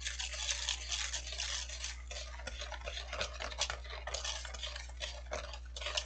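Dalgona coffee mixture of instant coffee, sugar and water being whipped by hand in a stainless steel bowl: rapid, continuous clicking and scraping of the utensil against the metal bowl as the mixture thickens.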